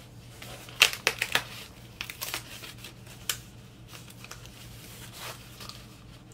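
A cardboard record mailer being handled and worked open. A quick run of sharp crackles and scrapes comes about a second in, then a few more scattered ones.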